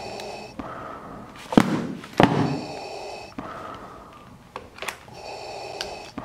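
Darth Vader-style respirator breathing: slow, hissing in-and-out breaths with a whistling edge, repeating about every two and a half seconds. Two loud, sharp thuds come about a second and a half and two seconds in.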